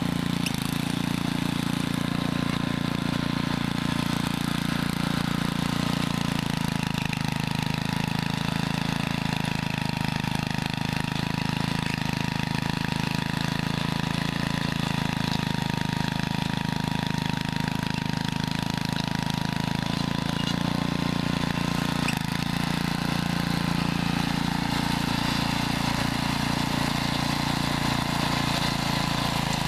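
Ariens Rocket V rear-tine tiller tilling hard ground, its Tecumseh vertical-shaft engine running steadily under load, with a thin steady whine above the engine note. The engine runs well and the tilling goes easily.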